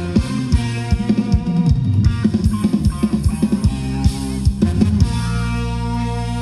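Upbeat ramwong dance music from a band, with a driving drum beat over sustained bass and chords; about five seconds in the drum hits thin out and a held chord carries on.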